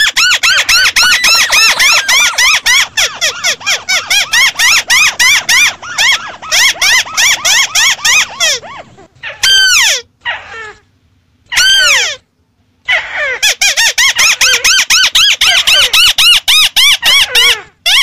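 Lure recording of white-browed crake calls: dense, rapid chattering runs of rising-and-falling notes, several overlapping, broken by a few short gaps around the middle.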